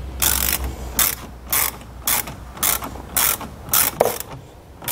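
Hand socket ratchet driving a 10 mm nut down onto a car battery terminal post: short runs of ratchet clicks with each back-swing, about two a second.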